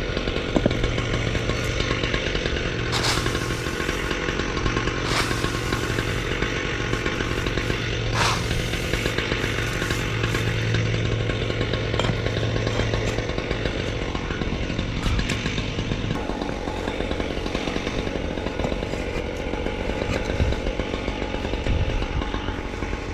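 A small gas engine running steadily at an even pitch, with a few short louder hissing bursts in the first third.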